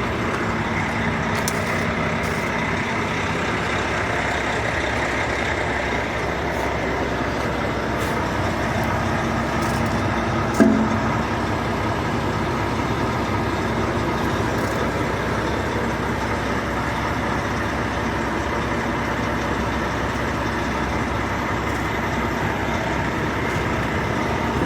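A vehicle engine running steadily, with one short knock about ten and a half seconds in.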